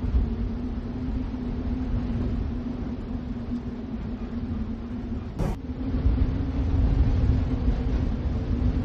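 A steady low rumble with a constant low hum running under it, and a single brief click about five and a half seconds in.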